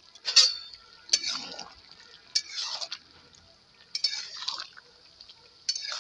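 Spatula stirring a thick cauliflower and flour-dumpling curry in a metal wok: about five wet scraping strokes, each starting with a clink against the pan.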